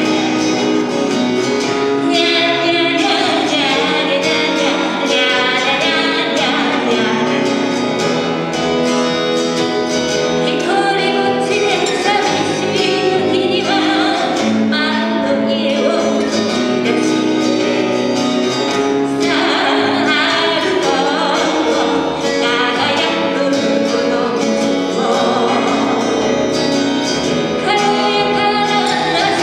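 Live acoustic jazz: a woman singing over two steel-string acoustic guitars and a plucked upright double bass, playing steadily without a break.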